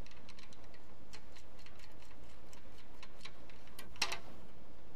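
Light metal clicks and taps of a valve spring compressor and its adapter being handled and fitted on its mounting bar over the cylinder head: a scattering of small clicks with a louder one about four seconds in, over a steady background hiss.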